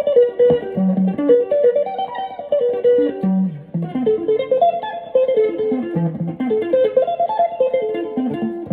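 Electric guitar playing a quick ringtone-style melody of short notes. The phrase breaks off briefly about three and a half seconds in, starts again, and ends on a held note near the end.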